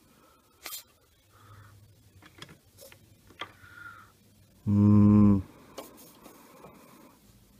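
Desoldering gun's vacuum pump buzzing loudly for under a second, about five seconds in, sucking molten solder from the battery's through-hole pads. Before it come a few faint clicks of the tip on the board.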